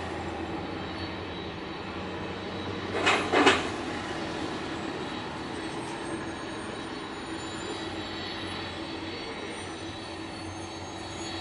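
Boeing 767 jet engines at taxi power, a steady rumble and hum with a faint high whine that slowly rises in pitch from about halfway on. About three seconds in, a brief loud double rush of noise, two peaks close together, stands out over it.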